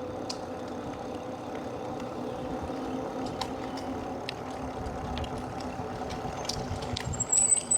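Electric e-bike motor whining steadily under tyre and wind noise while riding, with a few light ticks. A high, thin insect trill starts near the end.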